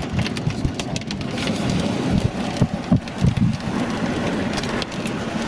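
Rain and hailstones hitting the roof and windshield of a moving car, heard from inside the cabin: a steady hiss with many irregular sharp knocks and low thuds.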